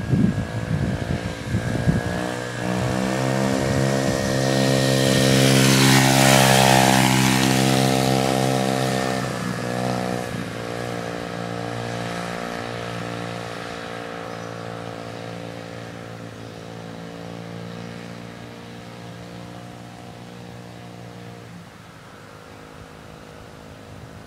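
A 70cc dirt bike engine comes closer, passes nearby about six seconds in, and fades away into the distance. Its pitch drops as it goes by and dips again about ten seconds in. The steady engine note then grows fainter and dies away near the end.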